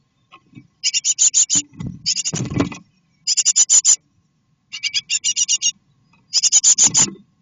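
Great tit nestlings in the nest box begging: five short bursts of rapid high-pitched chirps, each under a second long. Scuffling in the nest material sounds under two of the bursts.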